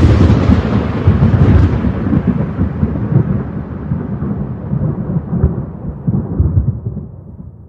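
A rolling rumble of thunder, loud at first and slowly dying away over several seconds.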